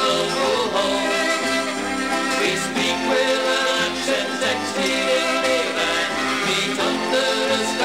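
Instrumental break of a folk song between sung verses: a lively melody with sliding notes over a steady bass accompaniment.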